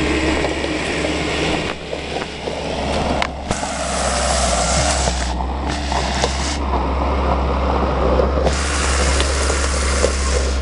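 Small light truck driving up a gravel dirt road towards the listener, its engine and tyres on the gravel growing louder as it comes close near the end. Wind buffets the microphone in gusts.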